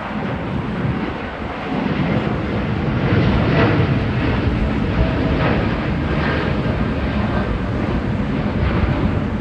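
Jet engines of a Boeing 787-9 Dreamliner at takeoff power on departure: a heavy steady rumble that swells over the first few seconds, with faint whining engine tones riding on top.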